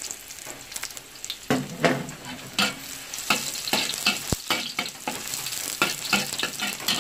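Sliced shallots sizzling in hot oil in a wok, stirred with a metal spatula. From about a second and a half in, the spatula scrapes and taps against the wok again and again, with one sharper knock midway.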